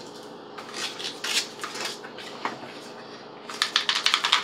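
Small paperboard box being picked up and handled: scattered scraping and rustling, then a quick run of sharp taps near the end as it is tipped and worked to get its contents out.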